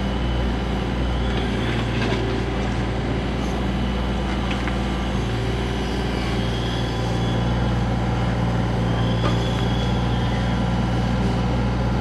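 XCMG mini excavator running steadily while it digs, a constant low hum of its power unit and hydraulics as the boom and bucket work the soil.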